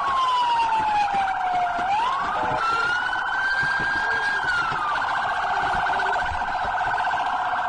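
Police car electronic siren wailing, its pitch sliding slowly down and back up. About five seconds in it switches to a fast warble.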